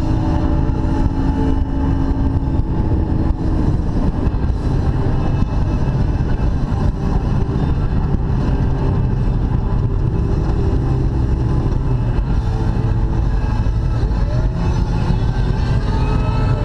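Baja powerboat's engine running steadily as the boat cruises, a continuous low rumble.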